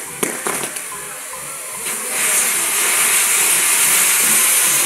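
Fireworks on a burning castillo tower: a few sharp crackles, then from about two seconds in a spark fountain on the tower hisses loudly and steadily.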